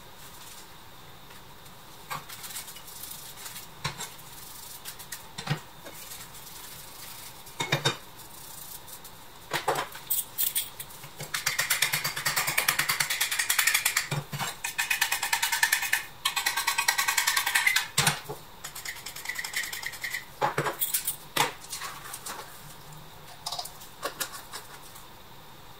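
Pressed-steel Tonka tractor body parts being handled on a cutting mat: scattered light knocks and clinks, with a stretch of fast scratchy rubbing of about six seconds in the middle.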